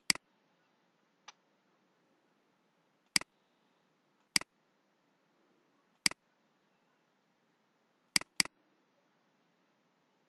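Computer mouse button clicking: single sharp clicks every second or two, with a quick double click at the start and another near the end, and faint room tone between.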